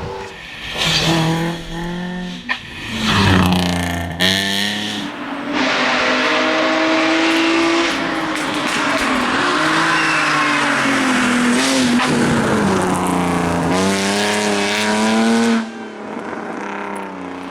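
Rally cars at full stage pace, engines revving hard and the pitch climbing and dropping with each gear change, with loud tyre noise. The sound switches abruptly a few times from one car to the next.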